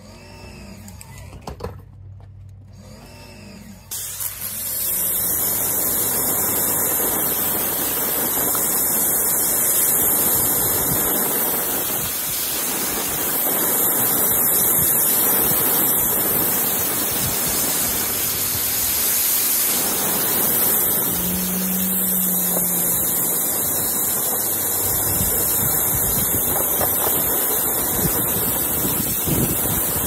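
Pressure washer jet spraying water onto rubber car floor mats: a loud, steady hiss of water striking rubber and concrete that starts abruptly about four seconds in, after a low steady hum.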